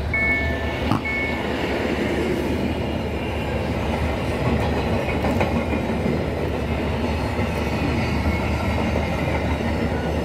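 Freight train of empty double-deck car-carrier wagons rolling past a level crossing, a steady rumble of wheels on the rails with a sharp knock about a second in. For the first second or so the crossing's warning signal sounds in short repeated tones, then stops.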